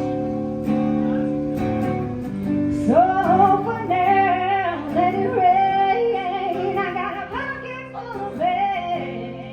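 Acoustic guitar strumming a blues tune. A woman's voice comes in about three seconds in, singing with sliding, wavering pitch over the chords.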